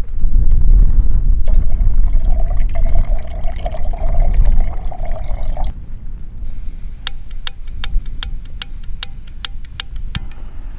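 Water poured from a bottle into a small camping pot for a few seconds, under heavy wind rumble on the microphone. After the pour comes a series of sharp clicks, about three a second, over a faint high hiss.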